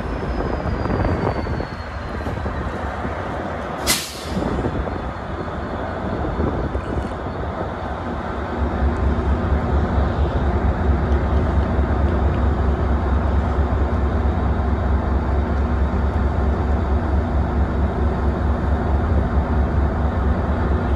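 Metra MP36PH-3S diesel locomotive standing at the platform with its engine running, a steady low rumble, with a faint falling whine that fades out over the first few seconds. About four seconds in, a short sharp hiss of air from the brake system. From about eight seconds in the engine rumble is louder and holds steady.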